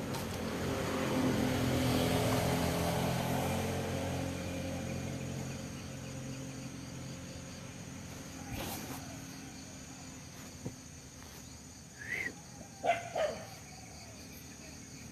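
A motor vehicle driving past, its engine swelling to its loudest about two seconds in and then fading away over the next few seconds. Insects keep up a steady high chirring underneath.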